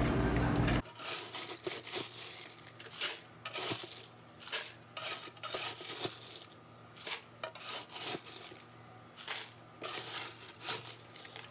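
A vehicle's low drone cuts off under a second in, followed by irregular crinkling and crackling noises, a quick cluster every second or so.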